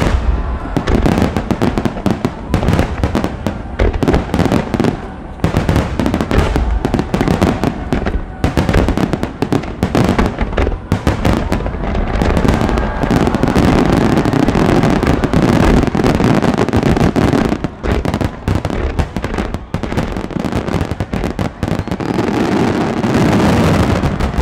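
Japanese starmine fireworks barrage: shells bursting in rapid succession, a dense, continuous run of booms and crackling with hardly a gap, heaviest around the middle and again near the end.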